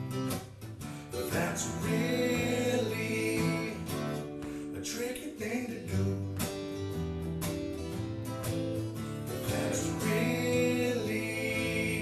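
Instrumental passage of a song led by strummed acoustic guitar, with sustained melody notes over the chords.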